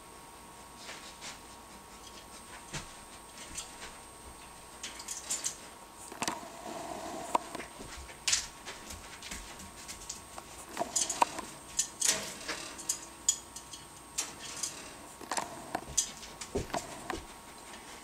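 Irregular clicks and light metallic clinks at a wire birdcage, with a few brief squeaks among them. They come more often in the second half.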